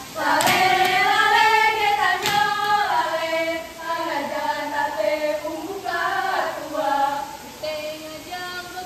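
A group of girls singing and chanting in unison for a Ratoh Jaroe seated dance, loudest in the first few seconds. Two sharp hand slaps or claps, about two seconds apart, come near the start.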